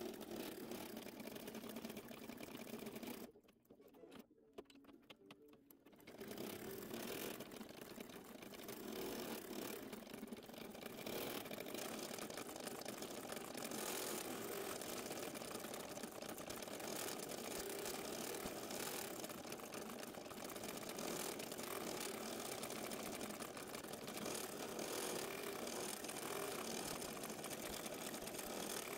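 Embroidery machine stitching, sped up. The stitching stops for about three seconds a few seconds in, with a few faint clicks, then carries on steadily.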